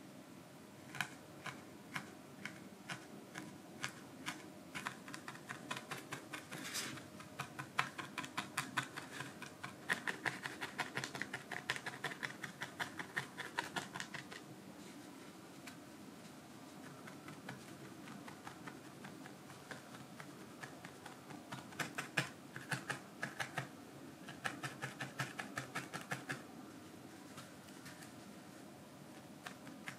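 Felting needle stabbing repeatedly through white wool and a felt base into a foam pad: runs of quick crisp pokes, several a second, with a lull of several seconds in the middle before the pokes start again.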